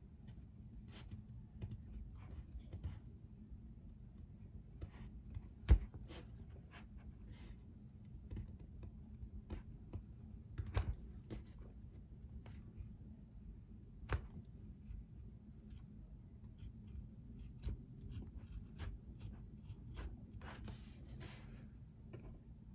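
Faint, scattered clicks and scratches of a small steel hand tool picking at the stitched welt of a leather chukka boot, with one sharp click about six seconds in and a short scratchy stretch near the end. A steady low hum runs underneath.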